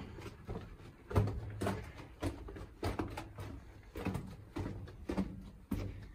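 Footsteps on the dirt and loose rock floor of a mine tunnel, a steady walking pace of about two steps a second.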